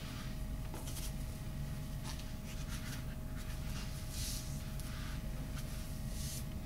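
Foam pre-wrap being pulled off its roll and wound around an ankle over heel-and-lace pads: a few soft rustling swishes, the clearest about a second in, about four seconds in and near the end, over a steady low hum.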